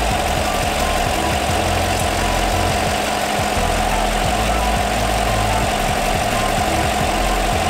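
Pickup truck engine idling steadily close up under the open hood, a constant low hum with an even mid-pitched whir over it.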